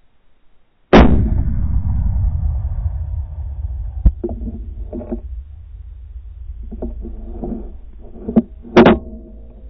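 A single rifle shot about a second in, very loud, followed by a low rumbling report that fades over several seconds. A second sharp, loud sound comes near the end.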